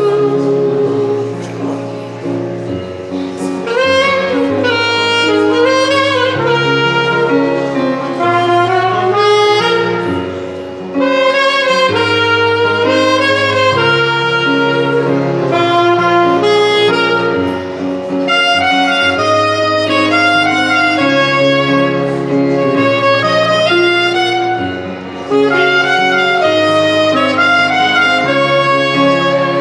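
Instrumental music: a lead melody with vibrato over held bass notes and chords.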